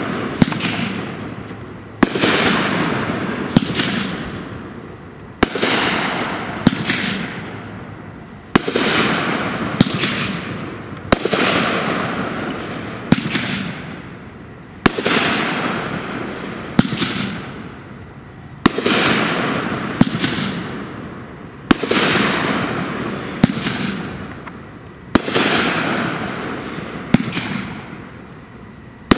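Pyro Demon 'Snow Blind' 16-shot firework cake firing, about one shot every two seconds. Each shot is a sharp bang followed by a hissing rush that fades over a second or two.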